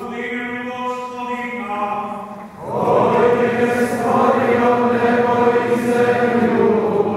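Traditional church chant sung by a group of voices during a procession, slow and sustained. About three seconds in, the singing becomes much louder and fuller.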